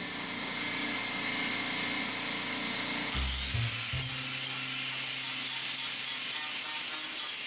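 Grinder fitted with a wire wheel, running and scrubbing rust and paint off old cast-iron machine parts. A high whine climbs about three seconds in and then holds steady.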